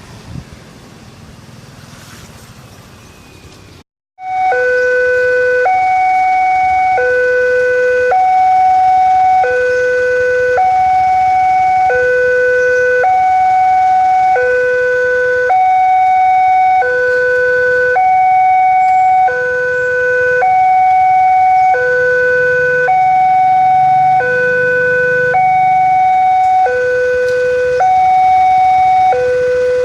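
Electronic railway level-crossing warning alarm sounding a repeating two-tone signal, a higher tone and a lower tone alternating about every 1.2 seconds, warning that a train is approaching. It starts suddenly about four seconds in, before which there is only faint road traffic.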